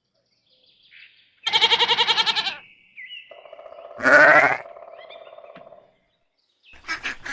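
Mountain goat bleating: a quavering bleat, then a lower, quieter call with a second, louder bleat over it.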